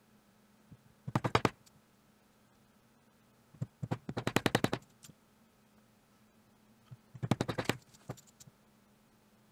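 A mallet striking a multi-pronged leather stitching chisel to punch stitch holes: three quick runs of sharp taps, each of several rapid blows, with short pauses between them.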